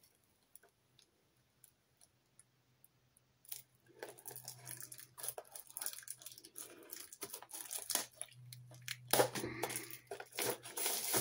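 After a few seconds of near silence, a model kit's box and its packaging are opened by hand: rustling, crinkling and tearing with many small clicks and knocks, growing busier towards the end.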